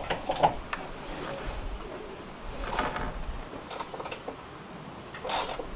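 Scattered short clicks and clunks of tools working on a Norwood sawmill's blade-tracking adjustment, with a brief scrape about three seconds in and a louder one near the end.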